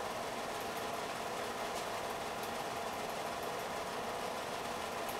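Film projector running, a steady mechanical whirr with a fine, rapid clatter.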